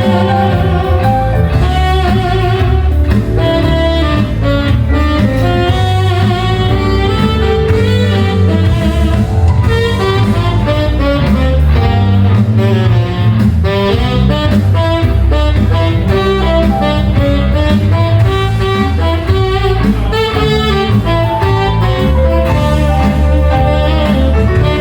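Loud instrumental music with a melody over a heavy, steady bass, played through a sound system during a sound check.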